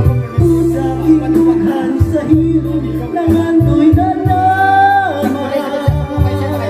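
A man singing into a microphone over a backing track with a repeating bass beat. He holds one long note about four seconds in, and then his voice drops.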